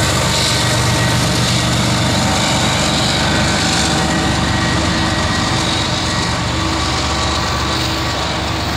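Union Pacific diesel-electric locomotive's engine running steadily, a constant low drone with a stack of steady tones and no change in pitch, easing off slightly near the end.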